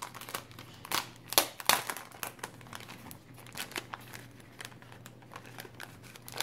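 Clear plastic (cellophane) sleeve crinkling as it is pulled open and handled: a few sharp crackles in the first two seconds, then softer, continuous rustling.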